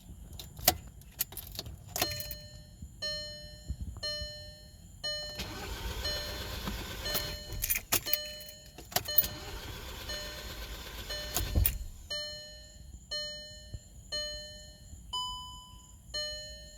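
2011 VW GTI dashboard warning chime beeping about once a second, with clicks, and about six seconds of mechanical whirring and rumbling in the middle as a start attempt that doesn't catch; the car won't start.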